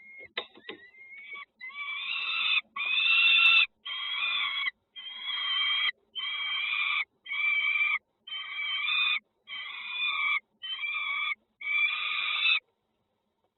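Nestling birds begging in the nest: a few short chirps and clicks, then a run of about ten loud calls, each nearly a second long, one after another, stopping abruptly near the end.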